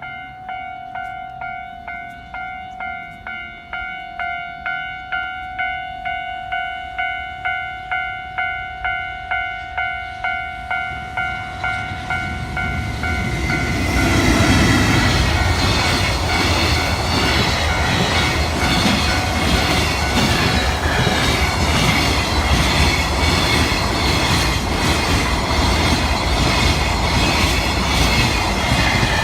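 Japanese level-crossing warning bell ringing in a steady ding-ding about twice a second. About halfway through, a freight train reaches the crossing and passes, its loud rumble and the clatter of wheels over the rail joints drowning the bell.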